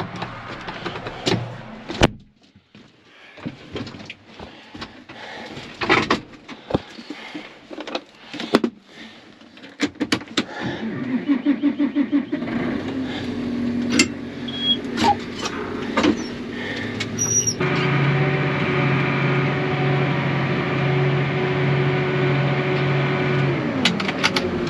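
Clicks and door clunks, then a truck engine starts about ten seconds in and runs. A few seconds later it settles into a louder steady run.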